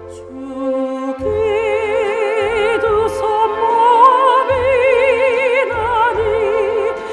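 Soprano voice singing long, held notes with wide vibrato over an instrumental accompaniment; the voice comes in about a second in.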